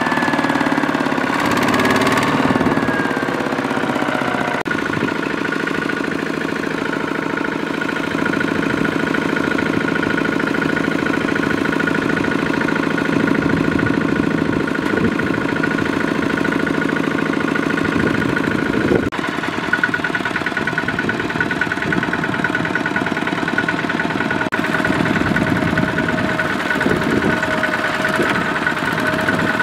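Single-cylinder diesel engines of Kubota walking tractors running steadily while hauling loaded rice trailers through mud. The engine note changes abruptly about 5 seconds in and again about 19 seconds in.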